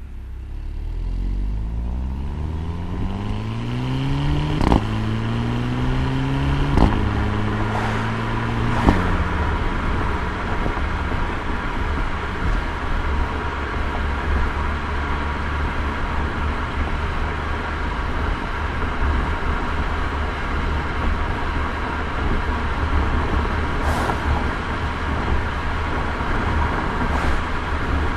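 2012 VW GTI's stock exhaust from its 2.0-litre turbo four, heard from the rear hatch: the engine note climbs in pitch through three gears, dropping with a short click at each upshift about five, seven and nine seconds in, then holds steady at cruise under road and wind noise. The stock note is weak and sounds more like a vacuum.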